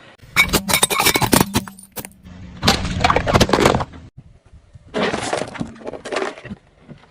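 Brittle objects crunching and cracking as a car's tyre crushes them, in three bursts of rapid snaps, with the car's engine humming under the first two.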